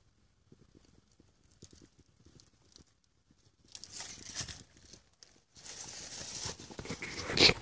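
Rustling and crinkling from movement close to the microphone, in two spells, about a second long and then nearly two seconds long, the loudest just before the end.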